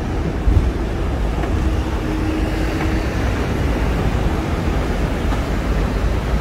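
Hong Kong double-decker tram running along its street tracks, heard from the upper deck: a steady low rumble with a single thump about half a second in and a faint hum for a second or so.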